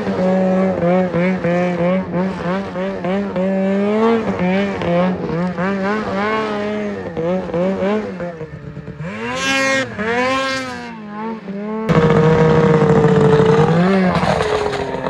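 Snowmobile engine revving hard as the sled is ridden through wheelies and donuts, its pitch wavering quickly up and down with the throttle. Near the middle it climbs steeply and falls twice. Later it jumps louder and holds at high revs before easing off.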